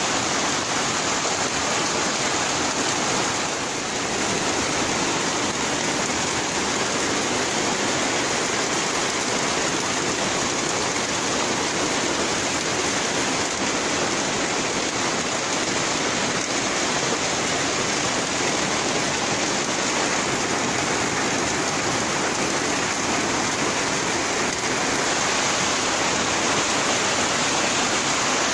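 Heavy rain falling steadily on trees and corrugated metal roofs, an unbroken even wash of noise.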